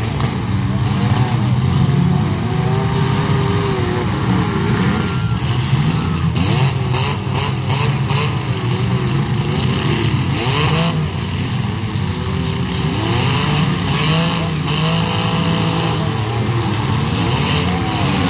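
Several compact demolition-derby cars' engines revving up and down together, with a few crunching collisions of cars ramming each other.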